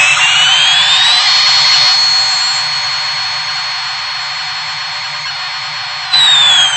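Daron toy airplane's electronic jet sound effect: a hissing whine that rises in pitch over the first second, holds steady, then starts falling about six seconds in, where it suddenly gets louder.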